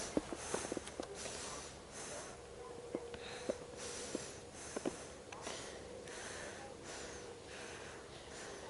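Breathing close to the microphone, in short breaths about once a second, with a few sharp handling clicks in the first few seconds and a faint steady hum underneath.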